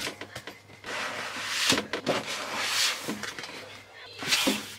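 Clear zippered storage boxes rustling and scraping as they are pushed and shuffled onto wardrobe shelves, in several short bursts, with a faint voice underneath.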